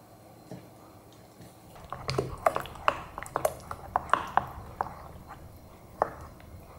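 Wooden spoon stirring a wet grated-cucumber paste in a glass bowl and knocking against the glass: a quick, uneven run of clinks with a short ring from about two seconds in until nearly five, then one more clink about six seconds in.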